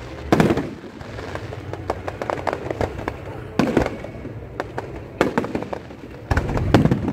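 Fireworks display exploding overhead: about four heavy booms with echoing tails, the last near the end the deepest, and a scatter of crackling pops between them.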